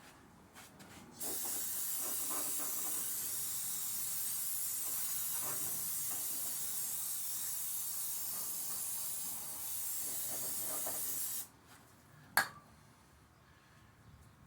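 A pressurised spray hissing steadily for about ten seconds, starting about a second in and cutting off suddenly, followed about a second later by one sharp click.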